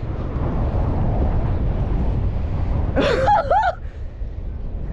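Wind buffeting the microphone, a steady low rumble. About three seconds in there is a short wavering wordless cry.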